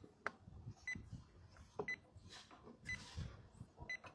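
Electronic refrigerant leak detector beeping at a slow, steady rate of about once a second, its idle rhythm: no refrigerant leak is being picked up. Light handling knocks and rustles of the probe in the air conditioner's outdoor unit.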